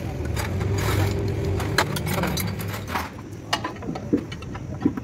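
Metal hand tools clinking and knocking against a truck engine's cylinder head as a mechanic works on it with a socket wrench, in sharp scattered strikes. A steady low hum fades out about three seconds in.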